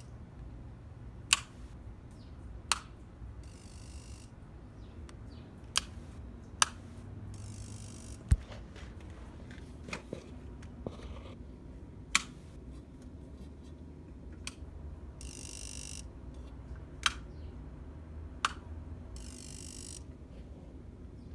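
A 2014 Honda CRF250L that won't start, giving sharp single clicks at irregular intervals, one to several seconds apart, with short hissing bursts in between. No engine cranking or running is heard.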